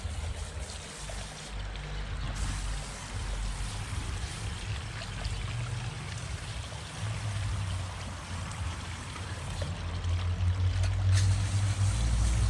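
Water trickling into a garden pond, with a steady low rumble underneath.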